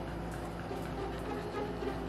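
Background music playing steadily and softly.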